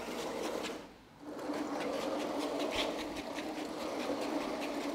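Brushless motor driving one 3D-printed tank tread of an electric skateboard: a steady hum with a run of clicks from the tread. It cuts out briefly about a second in, then runs on.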